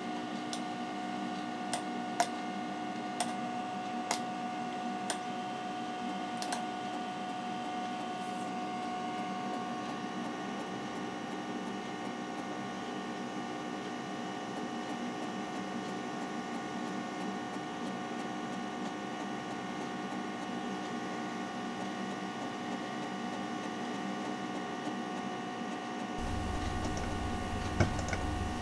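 Macintosh SE running with a steady mechanical hum of several fixed tones from its fan and drives while it copies files off an 800K floppy to a Zip 100 disk. A few sharp clicks come in the first several seconds, and a deeper hum joins near the end.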